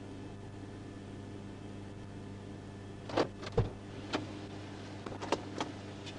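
Steady low hum inside a parked patrol car with its engine running. Between about three and five and a half seconds in come a handful of sharp clicks and knocks, one of them a low thump.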